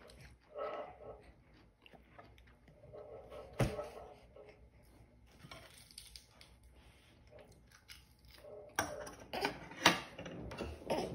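Brief soft baby vocal sounds, a sharp click about three and a half seconds in, then a run of sharp clicks and knocks near the end.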